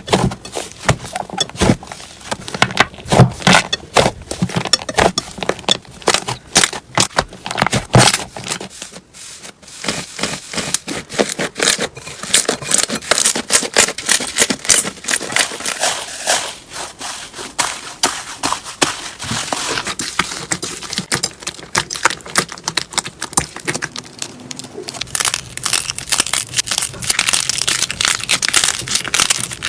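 Slime being played with by hand, giving a dense run of quick sticky clicks and crackling pops. It thins out briefly about nine seconds in, then picks up again.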